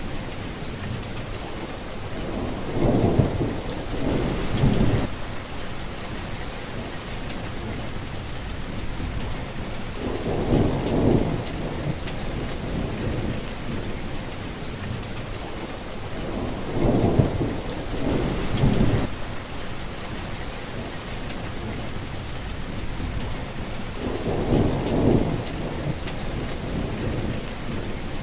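Steady rain falling, with low rumbles of thunder that swell and fade four times, about every seven seconds.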